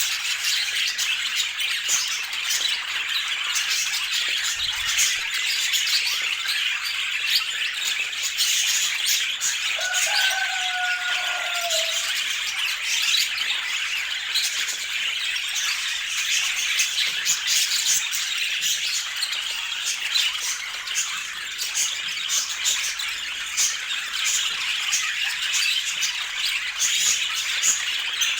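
Budgies chattering and squawking without pause, a dense stream of short, high calls and clicks.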